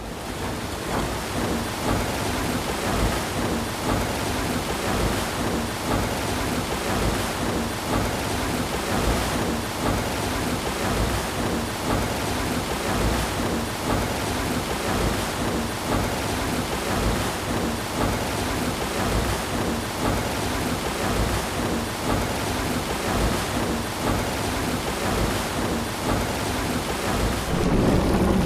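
Water mill: a steady rush of falling and splashing water from the wheel, swelling a little louder near the end.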